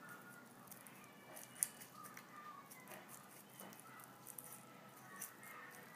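Faint sounds of a knife slicing through pork shoulder meat and along the shoulder blade bone: soft scattered ticks and scrapes, with one sharper click about a second and a half in.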